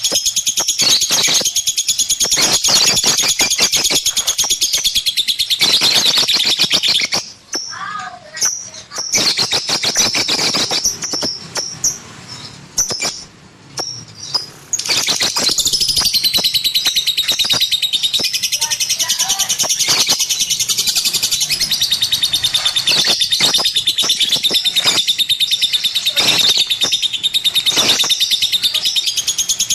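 Lovebird singing a long, very rapid, high-pitched chattering trill. The song breaks off into scattered chirps for several seconds in the middle, then resumes at full pace.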